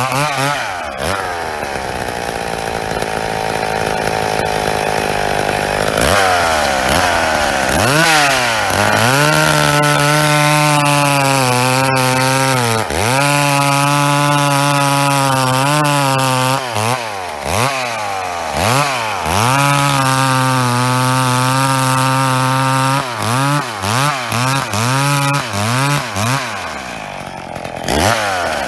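Two-stroke chainsaw with a freshly hand-filed chain cutting through a large log at high revs. The engine pitch holds steady for several seconds, then sags and recovers again and again as the chain bites. Near the end comes a string of quick revs.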